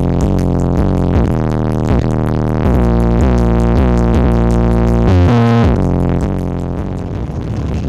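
Synthesizer-led electronic dance music with heavy bass, played loud through a large horeg sound system of twelve subwoofers during a sound check. The chords change every half second or so, with a short drop in the bass about five seconds in.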